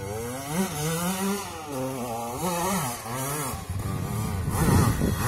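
Dirt bike engine revving up and down over and over as the rider throttles it up a steep dirt hill climb, loudest near the end.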